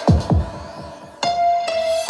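Electronic dance music playing on a JBL Flip 7 and JBL Charge 6 paired over Auracast. Deep kick hits fall in pitch, the beat thins out after about half a second, and a single high note is held from just past a second in until the full beat returns.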